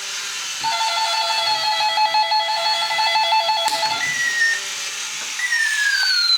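Battery-operated 1992 toy robot's electronic sound effects: a rapidly pulsing alarm-like tone for about three seconds, then two falling laser-like tones, over the steady whir of its walking motor.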